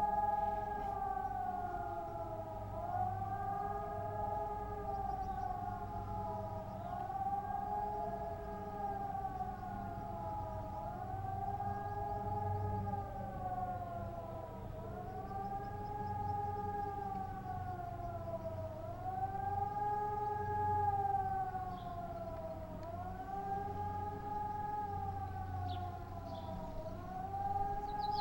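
Several civil-defence air-raid sirens wailing together in a test alarm, each rising and falling in pitch about every four seconds, out of step with one another. This is the undulating public-warning tone.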